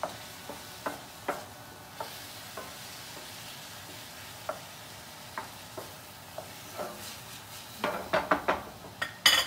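Shrimp and scallops sizzling in butter in a stainless steel skillet as a wooden spoon stirs them, with light knocks of the spoon against the pan. A cluster of knocks comes about eight seconds in, then one loud, sharp clank just before the end.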